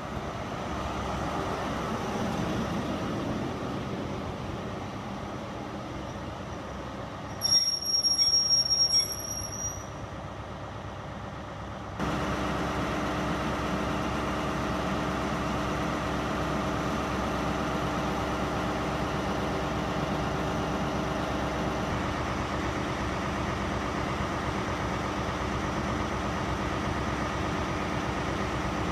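Diesel engine of a CrossCountry HST's Class 43 power car as the train pulls away, then, after a cut, the power car's diesel idling steadily beside the platform. A loud high-pitched whistle-like tone sounds for about two seconds a third of the way in.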